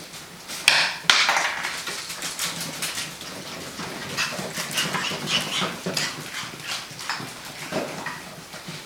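Six-week-old puppies' paws pitter-pattering on the floor as they run, many quick light taps, with two louder knocks about a second in.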